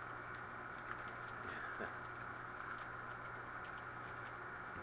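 Faint scattered small clicks and scrapes of a trading card being slid into a rigid plastic top loader, over a steady low hum.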